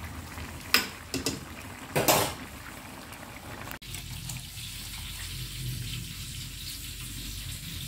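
A metal spoon stirring a bamboo-shoot and coconut-milk curry in a wok, with a few sharp clicks against the pan. About halfway through, a steady wet pouring as the curry and its broth slide from the wok into a serving bowl.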